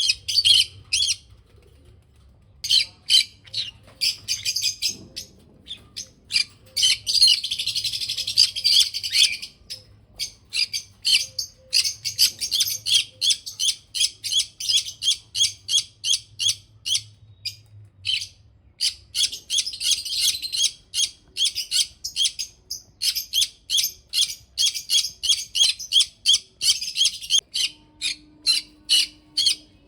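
Small pet parrots chirping: short, high-pitched chirps repeating several times a second, with a denser burst of chatter about seven to nine seconds in.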